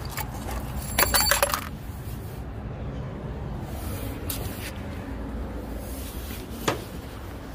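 A brief metallic jingle of small metal pieces clinking against steel, about a second in and lasting about half a second, then one sharp click near the end, over a steady low rumble.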